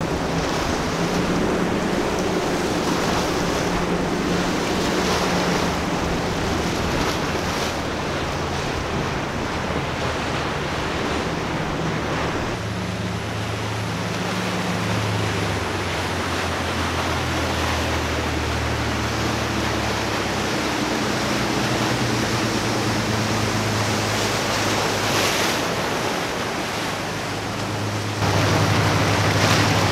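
Sportfishing boats' inboard engines running steadily under a rush of wake, surf and wind on the microphone. The engine hum changes abruptly twice, about a third of the way in and near the end, where it gets louder.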